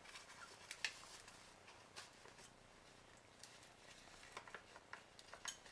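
Near silence, with a few faint, scattered clicks and taps of something small being handled.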